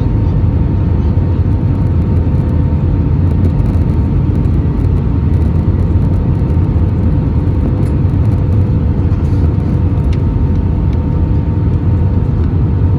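Steady cabin noise of an Airbus A320 in flight on approach: a deep, even rumble of engines and airflow with faint constant tones above it.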